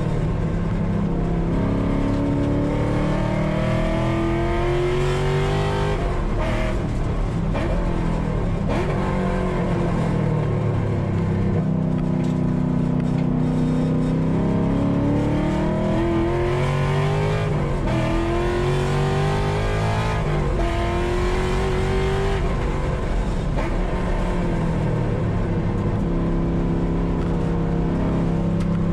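Car engine under hard acceleration, its pitch climbing through each gear and dropping back at several upshifts, with continuous road and wind noise.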